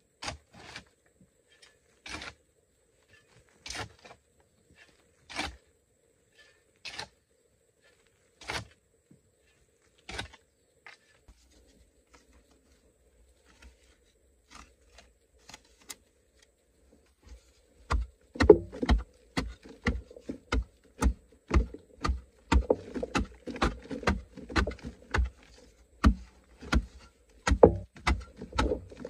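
A hand blade striking and scraping a hard clay earth wall: single sharp chops about every second and a half, a stretch of faint ticks, then, about two-thirds of the way in, a fast run of louder chops with dull thuds, about two a second.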